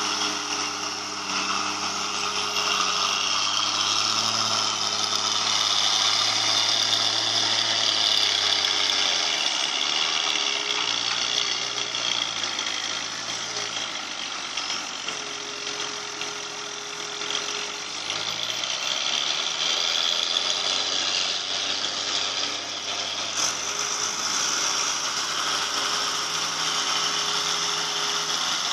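Excavator's diesel engine working hard while digging, its pitch sagging and recovering under load in the middle stretch, with a harsh mechanical noise over it. It sounds rough, which the uploader puts down to the machine being low on power.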